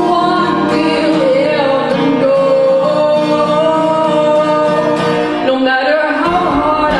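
A song with a singing voice over acoustic guitar accompaniment.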